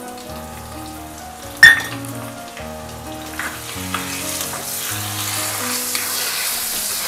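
Hot oil sizzling in a kadai as dried red chillies, curry leaves, cumin and garlic fry for a tempering, with a spoon stirring. The sizzle grows louder from about halfway through. One sharp pop about a second and a half in is the loudest sound, under soft background music.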